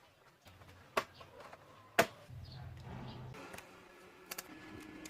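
Two sharp clicks about a second apart, then a few lighter ticks: hard plastic and small tools being handled as the laptop is worked on.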